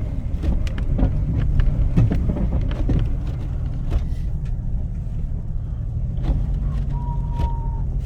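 A vehicle's engine and road rumble heard from inside the cab, steady and low, with scattered clicks and knocks. A single short high tone holds for about a second near the end.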